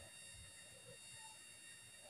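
Near silence: faint room tone with a few faint, indistinct background sounds.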